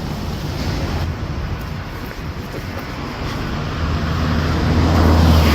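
Street traffic noise, with a vehicle engine's low hum growing louder toward the end as it passes close by.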